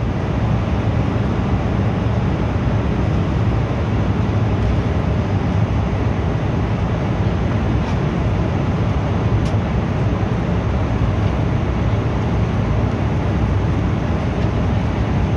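Steady cabin noise of an Embraer E175 airliner in flight: an even rumble of airflow and the two turbofan engines, heard from inside the cabin and deepest in the low end.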